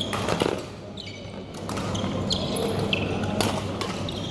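Badminton rallies on an indoor court: sharp racket strikes on the shuttlecock at irregular moments and short high squeaks of shoes on the court floor, echoing in a large hall over a steady low hum.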